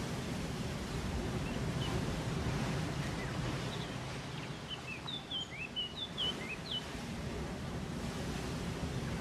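A steady rush of wind and water, with a small bird chirping a quick series of short, high notes about halfway through.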